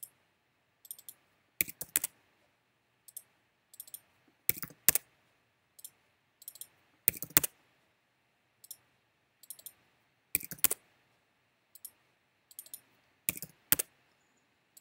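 Computer keyboard keystrokes and mouse clicks in short clusters, with a louder pair of clicks about every three seconds and lighter taps in between, as a value is typed into a field for each item selected.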